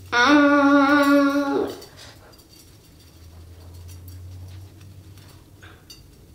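A girl's long hummed "mmm" of pleasure, one held note lasting about a second and a half, as a wire whisk-style head scratcher massages her scalp. After it, only faint scratchy rustling of the scratcher's wires in her hair.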